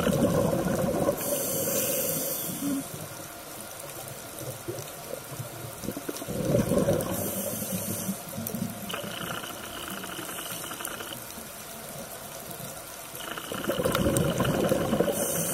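Scuba diver's regulator breathing underwater: exhaled bubbles rush out three times, at the start, about six seconds in and near the end, and the first two are each followed by a short airy hiss of inhaling.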